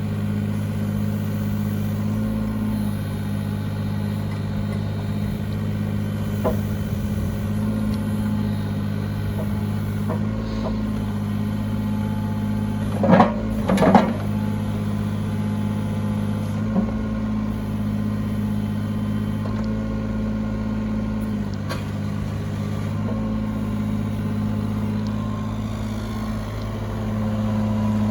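Yanmar ViO25 mini excavator's diesel engine running steadily, with two loud knocks about a second apart a little under halfway through.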